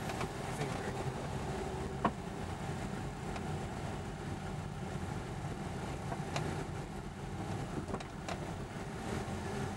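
Car driving on a city road, heard from inside the cabin: steady engine and road noise, with a few brief clicks.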